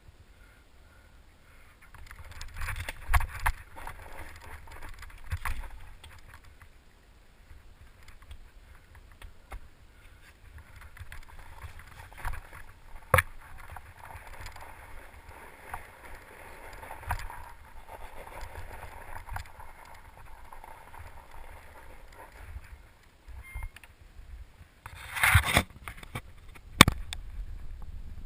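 Fat-tyre mountain bike ridden over a snowy, rooty trail: a steady rough crunch and hiss of the tyres on snow, with scattered sharp clicks and knocks of the bike jolting over bumps. Near the end come a burst of louder rubbing and knocking as the camera is handled.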